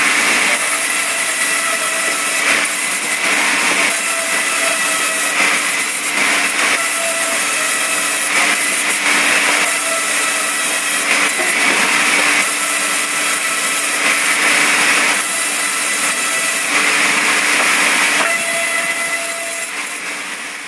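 Bandsaw mill running and cutting through a log: a steady machine run with a hissing cut that swells and eases every second or two, fading out near the end.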